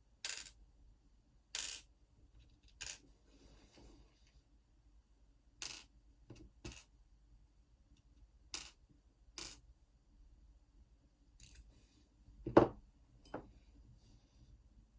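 Small metal clicks and clinks from taking apart the core of an Assa Twin 6000 lock cylinder, about a dozen separate clicks with a louder knock near the end.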